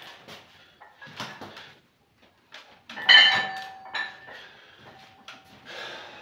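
A 64 kg loaded barbell set down on the floor about three seconds in: a clank of the weight plates with a short metallic ring, followed by a lighter knock a second later.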